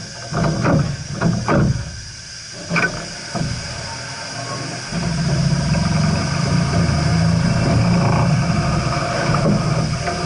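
Steam locomotive: several sharp, uneven bursts of exhaust in the first few seconds, then a steady low rumble from about five seconds in.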